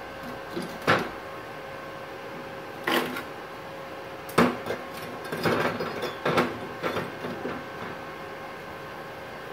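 Short, sputtering strikes of a MIG welding arc from a MultiPro MIG-MMA/TIG 160 inverter welder, running solid wire under argon at 85 A and 7.5 V. There are three brief strikes, then a stuttering run of about two seconds, over the machine's steady whine. The voltage is too low for the wire to melt properly.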